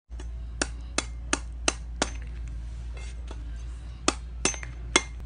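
Meat cleaver chopping into the husk of a young green coconut: five quick sharp chops about three a second, a pause, then three more near the end.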